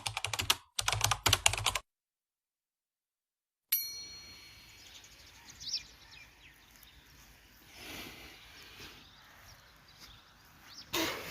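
Keyboard-typing sound effect: two quick runs of rapid clicks, then a bright ding about four seconds in. Faint outdoor ambience with a few small chirps follows, and there is a short loud rush near the end.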